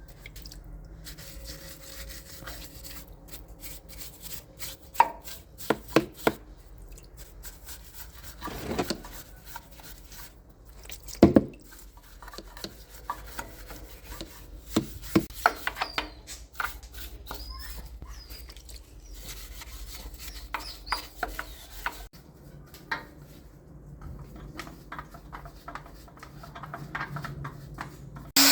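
Scattered knocks, clinks and rubbing of hand tools and metal parts being handled during repair work, with a few sharper strikes about five and eleven seconds in over a low steady hum.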